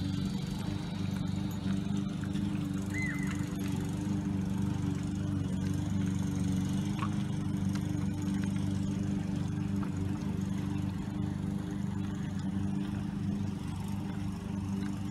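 A steady, even, low motor hum, like an engine running at idle. A few faint, scattered ticks, from a dog crunching dry kibble in a steel bowl, are heard over it.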